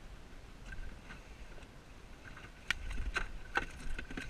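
Several sharp clicks and knocks in quick succession from about two-thirds of the way in, from gear being handled in a small inflatable boat, over a faint steady background.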